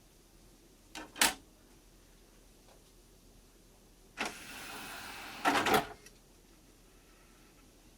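A button click, then a motorised CD tray running for about a second and a half and ending in a couple of clunks as it latches.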